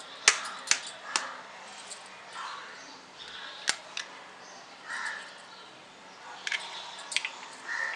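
An egg being tapped against the rim of a glass mixing bowl and cracked open: a series of sharp clicks, about three in the first second, a couple around the middle and a few more near the end.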